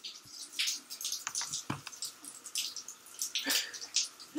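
Water splashing and dripping in a tiled shower stall during a large dog's shower, coming in short, irregular hissy bursts.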